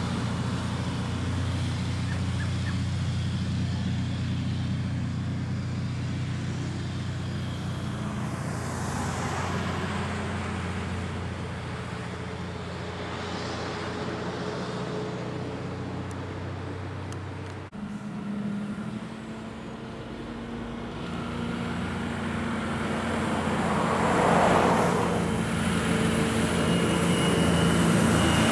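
Heavy truck-and-trailer units' diesel engines pulling uphill. A steady low engine drone from a truck climbing away fades slightly, then breaks off abruptly about two-thirds of the way through. Another truck's engine follows and grows louder as it approaches.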